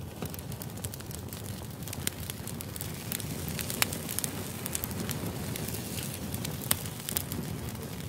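Wood fire of split logs burning in a metal fire pit: a steady low rush of flame with frequent sharp crackles and pops, two of them louder, about four seconds in and near the end.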